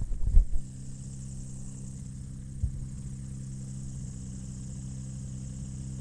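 Rotax 582 two-stroke twin engine of a Chinook Plus 2 ultralight idling steadily. A few thumps come in the first half-second and a single knock about two and a half seconds in.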